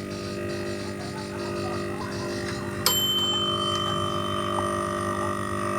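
Steady low electrical hum; about halfway through, a click and then a high, steady beep, typical of a multimeter as its probes touch the compressor's terminal pins, followed by a lower steady tone.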